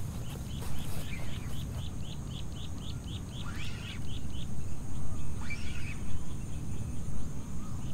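Outdoor ambience of a steady low rumble, with a bird repeating a short high chirp about four times a second through the first half. Other bird calls come in around the middle.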